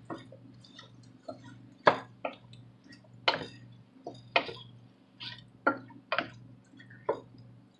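Spatula knocking and scraping against the side and bottom of a cooking pot as chicken pieces are stirred: irregular sharp knocks, about two a second, over a low steady hum.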